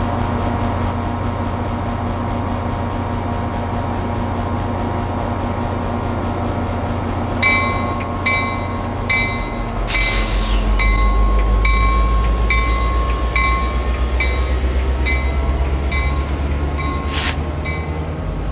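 Metro-North GP40FH-2 diesel locomotive idling, then its bell starts ringing about seven seconds in, with even strokes a little over half a second apart. About ten seconds in the engine throttles up and its low rumble grows as the train starts to pull away.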